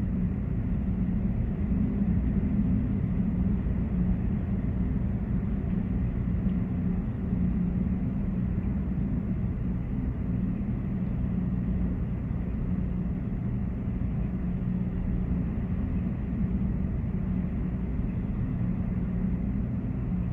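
Steady low rumble of storm wind and crashing surf, unbroken throughout.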